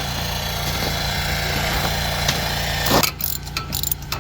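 A small engine running steadily, under a broad hiss that drops away about three seconds in, followed by scattered clicks and rustling.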